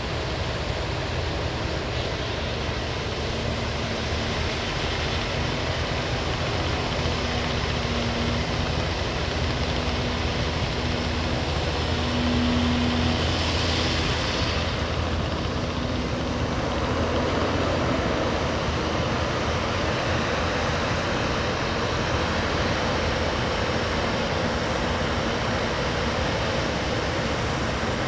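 Backhoe loader's diesel engine running steadily, with a low tone that comes and goes through the first half and a short hiss about halfway through.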